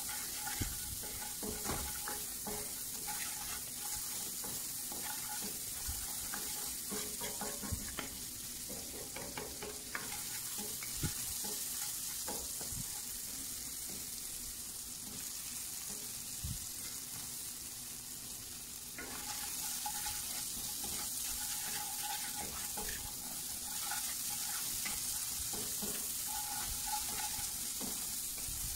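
Finely diced onion sizzling as it fries in a cast-iron skillet, stirred and scraped with a wooden spoon, with irregular knocks of the spoon against the pan. The sizzle swells again about two-thirds of the way in.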